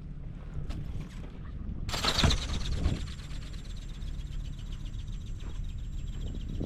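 Wind buffeting the microphone. About two seconds in, the ornithopter's small brushless motor and gear drive start up with a sudden loud burst. They then run on with a steady high whine and a fast, even ticking from the flapping drive.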